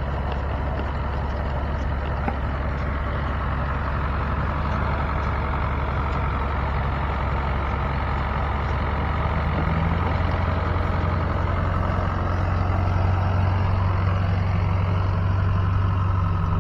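Engine running steadily, growing louder and a little higher in pitch from about ten seconds in.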